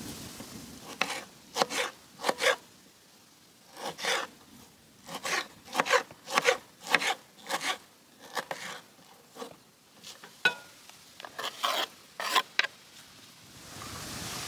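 Knife slicing a tomato on a wooden cutting board: a string of short, irregular cutting strokes, each knocking lightly against the board. A steady hiss comes in near the end.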